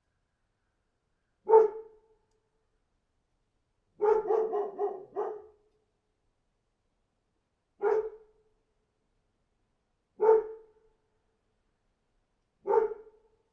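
A dog barking: a single bark, then a quick run of about five barks, then three single barks a few seconds apart, with silence between.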